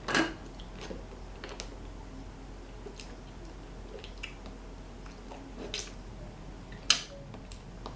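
A person eating fast food close to the microphone: chewing and mouth noises, with a louder burst at the start and scattered short clicks, the sharpest near the end.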